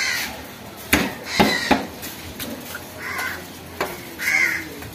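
Crows cawing repeatedly, about five harsh calls. A few sharp knocks of a cleaver on a wooden chopping block come about a second in and again shortly before the end.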